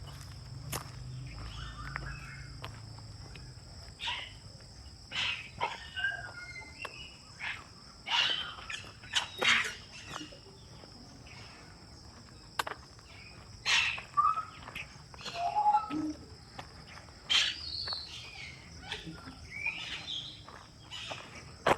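Birds calling in short, irregular chirps over a steady high-pitched insect drone.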